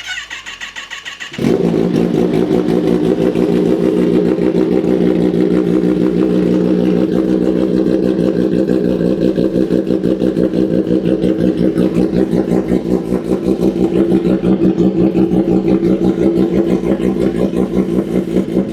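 2025 Kawasaki ZX-10R's inline-four engine being started: the electric starter cranks for about a second and a half, then the engine catches and settles into a steady idle.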